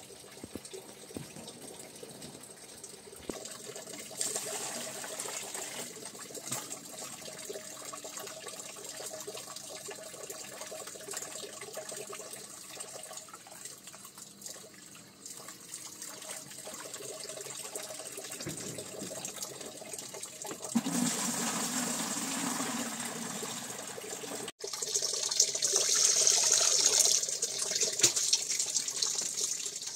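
Running water, splashing and pouring, in several edited shots with abrupt cuts; it grows louder and fuller in the last several seconds.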